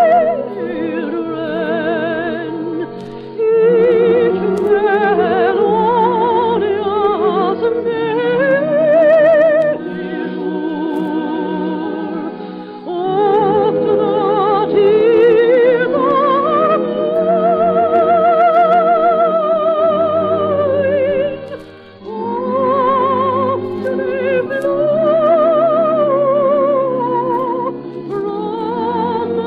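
Solo singing with wide vibrato in an operatic style over sustained orchestral accompaniment, a slow ballad, heard in a narrow-band old radio recording. The music dips briefly about two-thirds of the way through, then the singing resumes.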